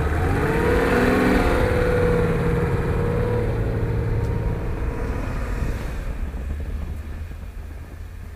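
Nissan Patrol SUV's engine revving up and down as it ploughs through deep snow, then running steadily and fading as the vehicle drives away.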